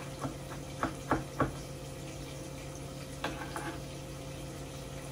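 Kitchen knife chopping garlic on a cutting board: five quick light chops in the first second and a half, then a few softer taps about three seconds in, over a steady low hum.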